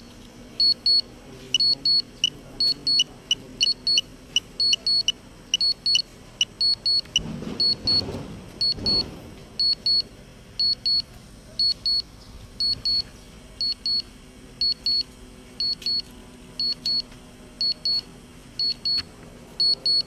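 Drone remote controller sounding a warning alert: quick high double beeps, repeating every half second to a second. A low rushing noise swells briefly around eight seconds in.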